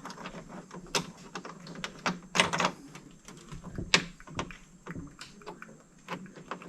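Irregular clicks, taps and knocks of hardware being handled and fitted inside a car door panel, while a small side crash sensor is put in place; the sharpest knocks come about one, two and a half and four seconds in.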